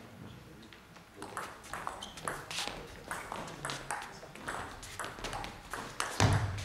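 Table tennis rally: a celluloid-type ping-pong ball clicking back and forth off the table and the bats, a few hits a second, with a heavier thump near the end.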